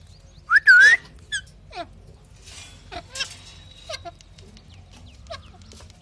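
Female parakeet giving a loud, harsh call with a rising and falling pitch about half a second in, followed by scattered faint short chirps.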